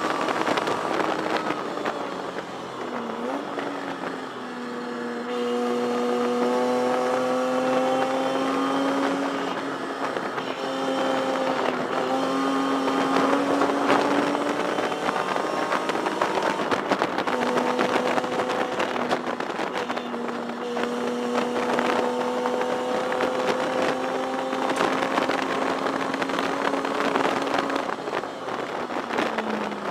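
1973 Datsun 240Z race car's straight-six engine heard from inside the cockpit, pulling hard with its pitch climbing slowly over several seconds at a time. The pitch drops sharply about three seconds in, around the middle, and again near the end, over a steady rush of road and wind noise.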